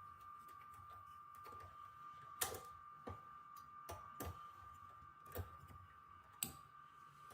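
Scattered light clicks and taps of hands working on computer parts and tools, about six over several seconds, the sharpest about two and a half seconds in, over a faint steady high hum.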